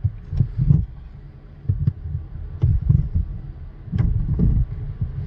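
Irregular low thuds and light metal clicks as a key is worked by hand into the keyway of a pinsetter's lower pulley hub and shaft, over a low steady hum.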